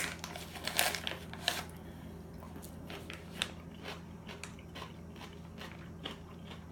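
Biting into and chewing a spicy pickle bite close to the microphone: a few loud crunches in the first second and a half, then softer chewing.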